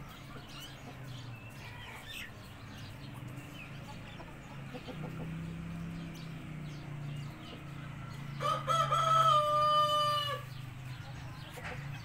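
A white Brahma rooster crowing once, a single drawn-out crow of about two seconds, about eight and a half seconds in. A low steady hum runs underneath.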